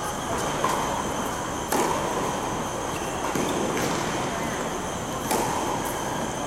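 Tennis ball struck back and forth by racquets in a rally: a few sharp pops a second or two apart, ringing in the indoor hall, over a steady background hum with a faint high whine.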